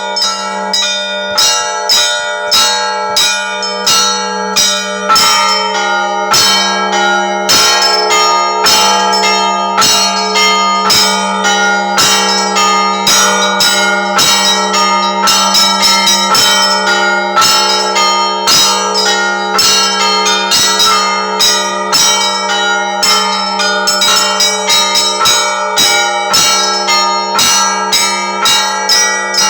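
Russian Orthodox church bells ringing in a continuous peal: rapid strokes on the smaller bells over a steady low hum from a larger bell.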